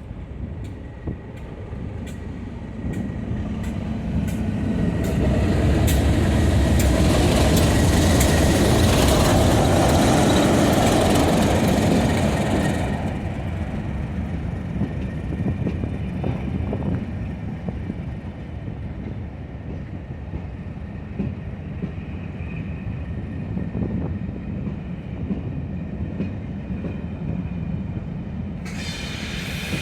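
A pair of English Electric Class 37 diesel locomotives, each with a 12-cylinder engine, running with a train. The engine noise builds to a loud peak as they pass about six to twelve seconds in, then drops away suddenly to a steadier, quieter running sound. A high squeal starts near the end.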